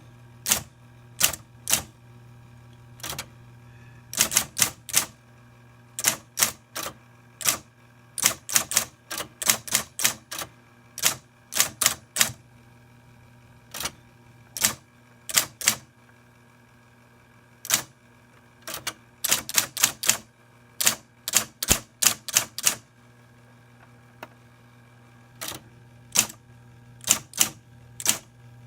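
Underwood 565 electric typewriter being typed on: sharp, irregular key strikes in quick runs over the steady hum of its running motor. The motor drives through a rubber band fitted in place of the stretched original belt.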